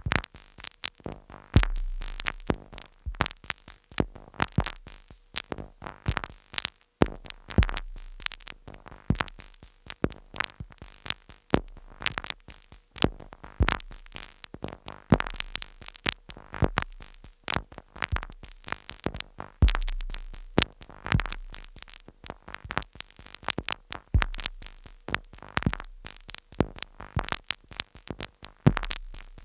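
Two Behringer Neutron analogue synthesizers, sequenced by a Korg SQ-10, playing glitchy noise music: a dense, irregular stream of sharp clicks and percussive hits over a deep sub-bass drone that comes and goes every few seconds.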